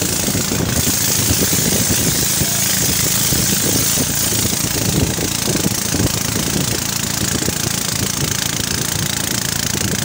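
A river boat's engine running steadily under way, with the hiss of rushing water and wind over it.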